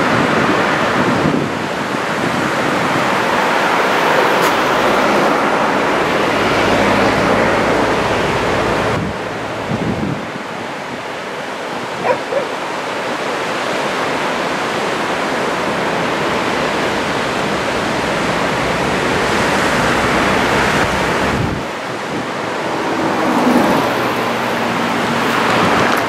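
Small surf washing onto a long sandy beach: a steady rushing noise, with wind rumbling on the microphone at times. A short sharp sound about twelve seconds in.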